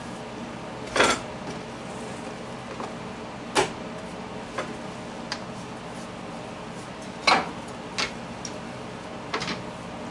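Rolling pin knocking on a countertop as bread dough is rolled out: about five short, sharp knocks, the loudest about a second in and again near seven seconds, over a steady low hum.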